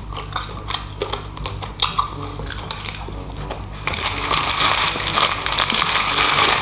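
Close-miked eating: bites and chewing of fried chicken, small sharp clicks and smacks, then from about four seconds in a paper food wrapper crinkling loudly and continuously as it is handled.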